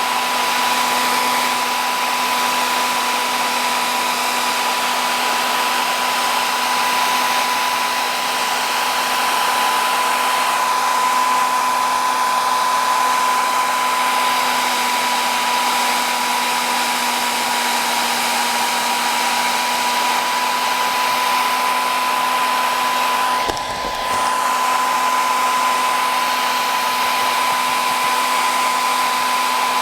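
Handheld electric blower motor running loud and steady, a high whine over a rush of air, with a brief dip and wobble about 23 seconds in.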